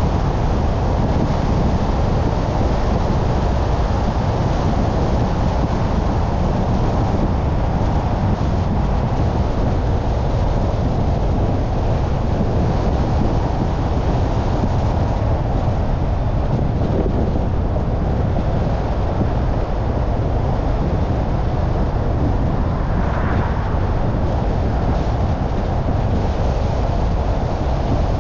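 A car driving along a city street: a steady low rumble of tyres and road noise, with wind on the microphone.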